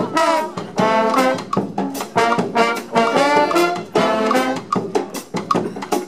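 Street brass band playing a lively instrumental passage: horns and sousaphone over a steady beat of bass drum hits.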